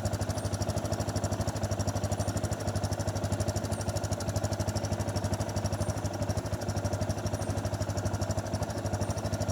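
Yamaha motorcycle engine running steadily, with an even, rapid pulsing beat.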